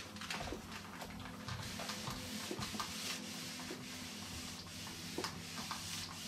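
Clothes iron sliding over a sheet of paper laid on a cardboard backing card: a soft, even papery rubbing with small ticks and clicks, as the frayed edge of the card is pressed flat.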